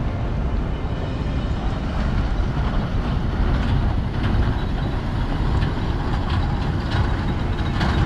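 Steady low rumble of road traffic with heavy vehicles such as trucks running on an unpaved construction diversion, with a few faint knocks.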